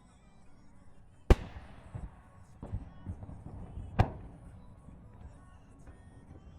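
Aerial fireworks shells bursting: two loud booms about 1.3 s and 4 s in, each trailing off in a fading rumble, with several smaller bangs between them.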